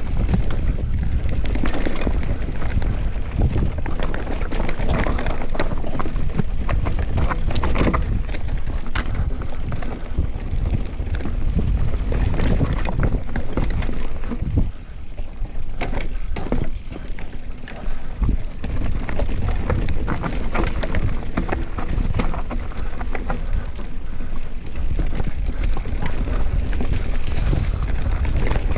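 Giant Reign mountain bike ridden fast downhill over dirt and rock: wind buffeting the microphone as a steady rumble, with tyres on loose ground and constant rattles and knocks from the bike over bumps. It eases off briefly about halfway through.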